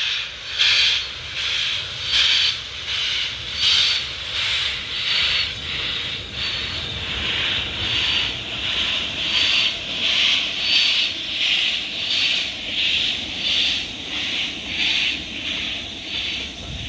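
Two-cylinder steam locomotive 70000 Britannia pulling away under steam. Its exhaust beats come evenly, about one every 0.7 s with every other beat stronger, over a steady hiss and the low rumble of the train.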